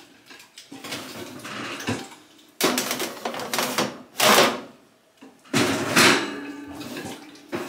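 Metal baking sheets of cookies slid out over the oven racks of a gas range and set down on the stovetop grates. There is a soft shuffle at first, then three loud metallic scraping clatters from about two and a half seconds in.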